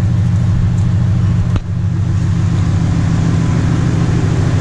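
Steady low drone of a running engine idling, with a brief drop in level about a second and a half in.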